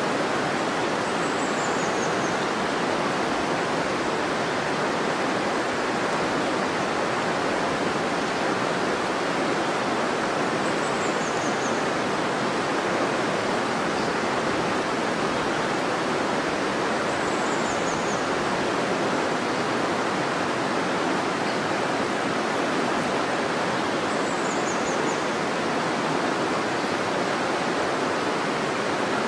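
River water rushing steadily. Over it, a short high call falling in pitch comes four times, about every seven seconds.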